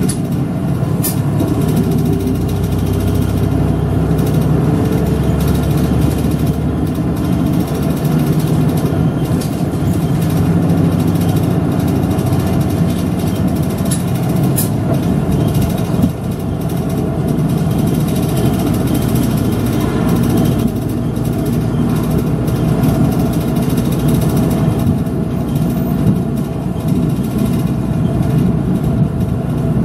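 City route bus's engine running as the bus drives, heard from inside the bus, its pitch drifting slowly up and down with speed. A few short clicks sound over it, the sharpest about halfway through.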